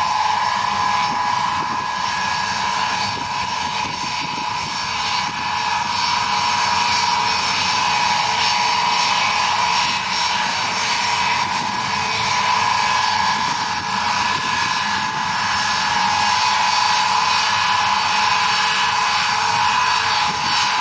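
Ilyushin Il-76T's four Soloviev D-30KP turbofan engines running at low taxi power, a loud steady jet whine over a low rumble.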